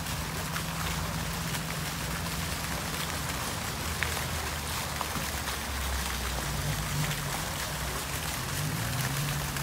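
Small fountain jet splashing steadily into its pool, a rain-like patter of falling water, with a low rumble underneath.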